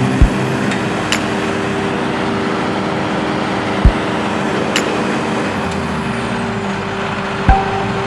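JCB Fastrac 3230 tractor's diesel engine running hard while the tractor is stuck in deep mud. A few dull thumps come through, about a second in, near four seconds and near the end.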